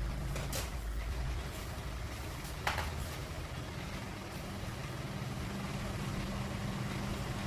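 Low steady rumble of a vehicle engine running nearby, with two sharp clicks, the louder one a little over a third of the way in.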